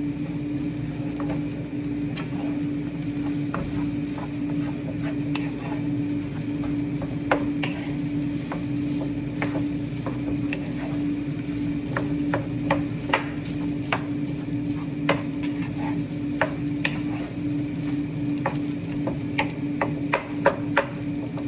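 Wooden spoon stirring and scraping day-old rice and diced sausage in a hot frying pan. The food sizzles in oil, and the spoon clicks against the pan now and then, more often near the end, over a steady hum.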